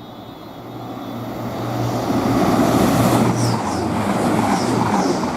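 Grand Central Class 180 diesel multiple unit passing through the station at speed. Its engine hum and rushing wheel and air noise build over about two seconds to a loud, sustained pass.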